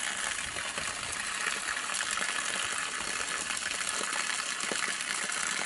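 Garden hose running full, its stream gushing out and splashing steadily onto the ground as bleach is flushed out of the well water system.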